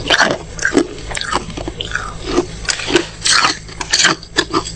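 Freezer frost being bitten and chewed close to the microphone: a quick, irregular run of crisp, icy crunches.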